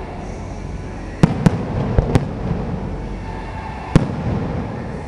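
Aerial firework shells bursting overhead. A quick cluster of sharp bangs comes a little over a second in and runs to just past two seconds, then one loud single bang about four seconds in. Each bang is followed by a rumbling echo.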